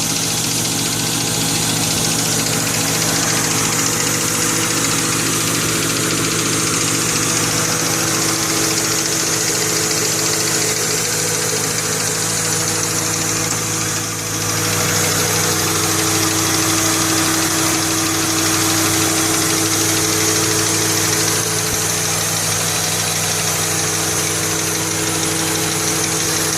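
Ford Mustang engine idling steadily, with a small knocking sound that the owner says is not really loud; he does not know its cause.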